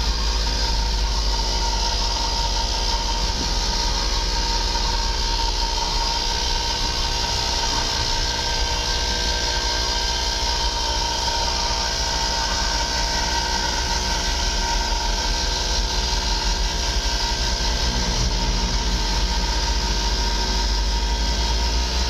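Steady engine and road noise of a vehicle driving along: a constant deep rumble with a steady whine on top.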